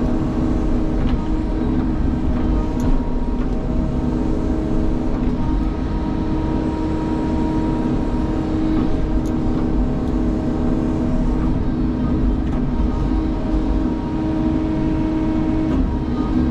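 Sany excavator's diesel engine running at steady revs, with a constant mechanical drone and no change in pitch.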